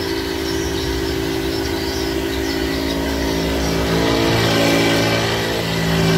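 Electric knapsack sprayer's pump motor running with a steady hum over the hiss of the spray. About four seconds in, its note shifts and grows a little louder. The pump has just been repaired by modifying the motor's bearing mount, and the spray is now strong again.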